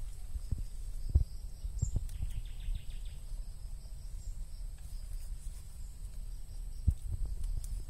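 Outdoor garden ambience: a low rumble with a few knocks, typical of wind and handling on a phone microphone as sweet potato tops are picked. Over it there is a faint steady high insect whine, and a short rapid trill about two seconds in.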